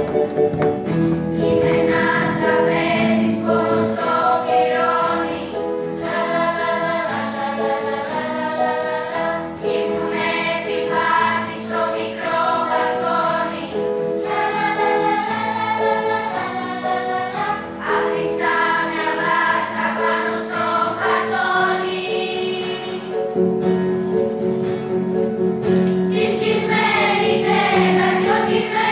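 Children's school choir singing a song together, the voices holding notes and moving from note to note.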